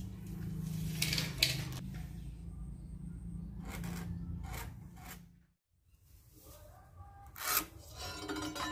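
Pencil and a metal speed square scraping and tapping on a rough timber plank as it is marked out, with a few sharp clicks and knocks. A low steady hum underneath stops about halfway through.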